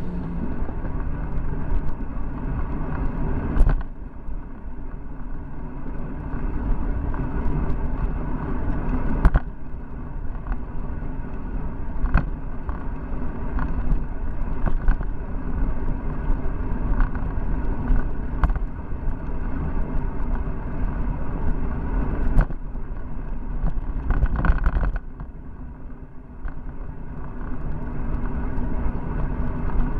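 Wind rushing over the microphone of a Cycliq Fly12 handlebar camera, with tyre noise, as a bicycle rolls along a paved road. Scattered clicks and knocks come from the mount rattling over bumps, and the rush eases briefly about four seconds in and again near the end.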